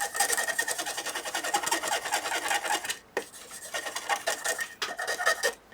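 Cotton bud wet with alcohol scrubbed rapidly back and forth over a circuit board, cleaning flux residue off freshly desoldered joints. The scrubbing stops briefly about three seconds in, then carries on.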